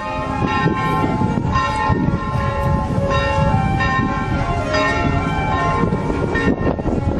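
Church bells ringing, several overlapping tones that sound and hang on, over a steady low rumble.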